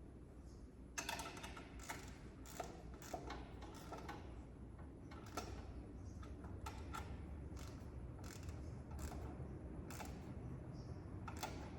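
Irregular metallic clicks and taps of hand tools and parts being handled during engine work, over a steady low background rumble.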